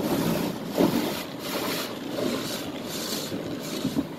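Automatic car wash heard from inside the car: the spinning cloth brushes and water spray sweep against the window in rhythmic swishes.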